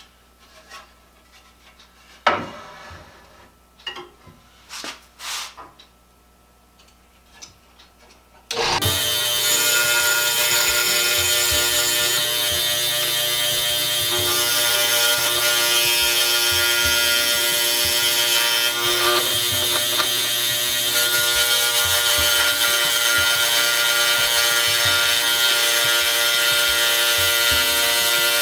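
A few scattered knocks and taps as the wooden board is handled. Then, about eight seconds in, an electric jigsaw starts suddenly and runs steadily, its blade sawing curves in the board.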